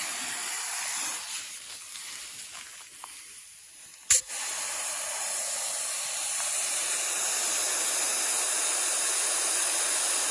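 Compressed air hissing into a flat tire through its valve stem from an air chuck. The hiss eases off for a few seconds, then after a sharp click about four seconds in it comes back steady and grows a little louder as the tire takes air.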